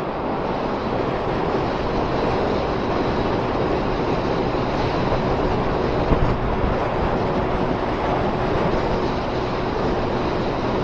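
Wind rush and road noise at cruising speed on a Honda Fireblade, with the bike's inline-four engine running steadily underneath. A brief louder peak comes about six seconds in.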